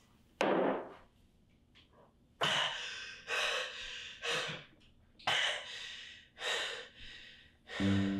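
A person breathing hard and audibly: a sharp intake of breath about half a second in, then a run of five or six loud breaths about a second apart. Soft piano music comes in near the end.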